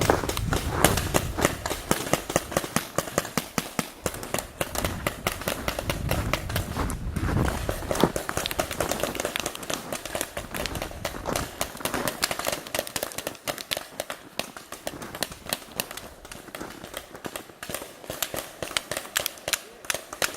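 A rapid string of sharp pops and clicks, several a second, with a low rumble under them in the first few seconds.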